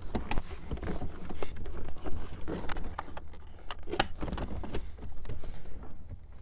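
Plastic clicks, knocks and wire rustling as a double-DIN radio in its plastic dash bezel is worked and pushed into a Mazda MX-5 Miata's dashboard, with the bezel clips popping into place. The clicks come scattered, the loudest about four seconds in, over a low steady hum.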